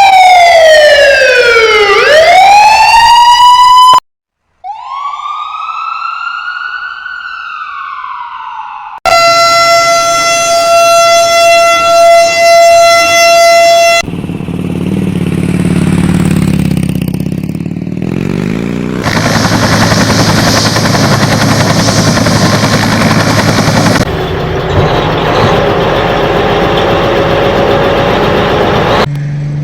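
A string of separate vehicle sound effects cut back to back: first a loud siren gliding down and back up in pitch, then a quieter tone rising and falling, then a steady held tone, then several stretches of engine and road noise.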